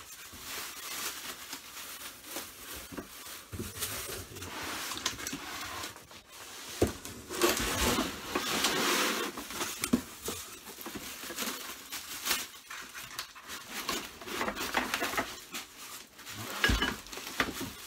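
Rustling and crinkling of packing material, with a few sharp knocks as parts of a wood lathe are handled and lifted out of their box.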